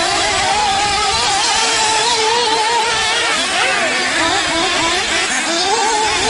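Several radio-controlled off-road buggy engines running together, their pitches wavering up and down as the cars rev and lift off through the track.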